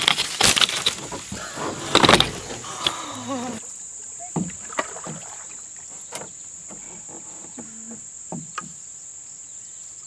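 Rustling and snapping branches with a woman's shrieks and laughter as the canoe is pushed through overhanging branches. About three and a half seconds in this drops to a quieter steady high-pitched insect drone, with a few light knocks.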